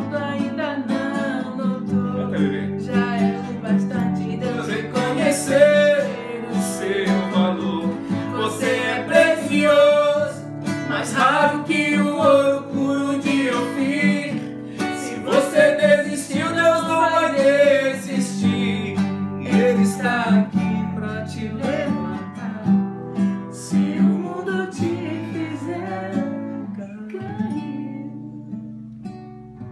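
Nylon-string acoustic guitar strummed and picked with a voice singing over it without clear words. The voice drops out in the last few seconds while the guitar plays on, growing quieter as the song closes.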